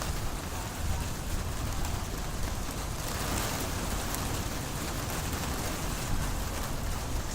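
Steady rain falling during a thunderstorm, a continuous hiss with a low rumble underneath.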